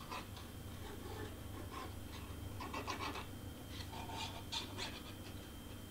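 A squeezed plastic bottle of liquid craft glue giving faint, irregular breathy squirts as glue is run along cardstock tabs, with light rubbing and handling of the paper.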